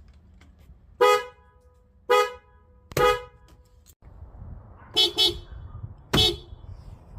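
Car horns honking in short toots: three single beeps about a second apart, then a quick double beep and one more beep over a low background rumble.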